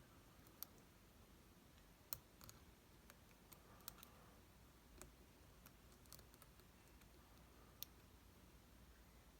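Faint, irregular metallic clicks of a lock pick and tension wrench working the pins inside an all-brass American Lock with a restricted keyway, about a dozen scattered ticks, the sharpest about two seconds in and another late on.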